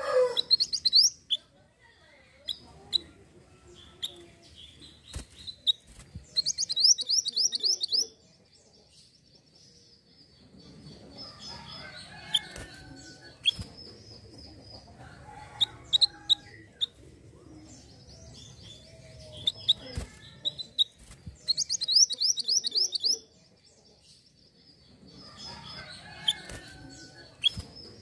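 A caged minivet (mantenan gunung) singing: short high chirps, broken twice by a loud, fast rattling trill about a second and a half long. There are a few sharp clicks in between.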